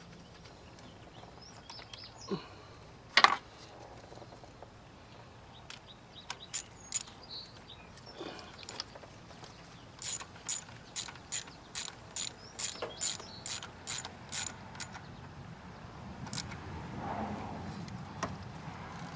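Ratchet wrench clicking in a run of quick, evenly spaced strokes, about three a second, as an ignition coil's hold-down bolt is tightened. A single sharp knock comes about three seconds in.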